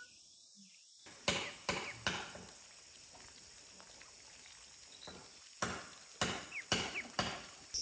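A series of sharp knocks, three close together and then a run of five or six more, over a steady high chirring of insects.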